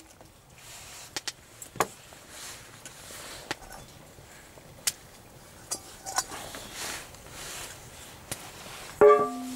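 Scattered light clicks and clinks of a spoon against a stainless-steel pot and plate while soup is being served. Near the end, a louder sudden sound leaves a steady held tone.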